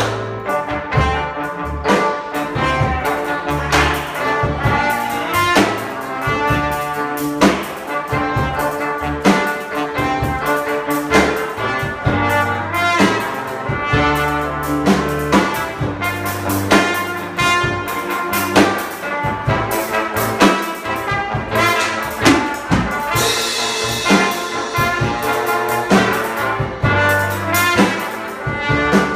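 Live brass music: a plastic trumpet and a plastic trombone play a tune together over a steady drum-kit beat.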